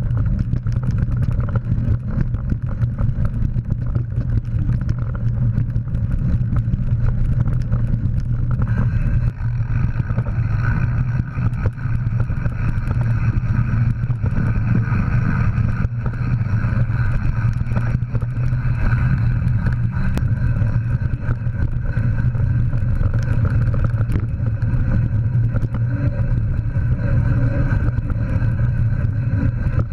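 Mountain bike ridden fast over a rough forest trail: a steady low rumble of wind and tyres with constant small rattles and clatter from the bike. About nine seconds in, a steady higher hum joins and stays.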